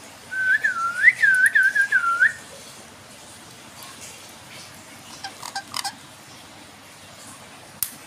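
A clear whistled phrase of about two seconds, swooping up and down in pitch several times, followed a few seconds later by a handful of faint clicks and one sharp click near the end.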